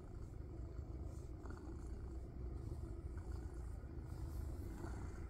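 Domestic cat purring close to the microphone, a steady low rumble, with faint rustles of a hand stroking its fur.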